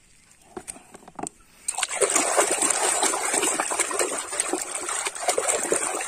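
A few faint clicks, then from about two seconds in a hand sloshing and splashing through a plastic tub of soapy water, steady and continuous.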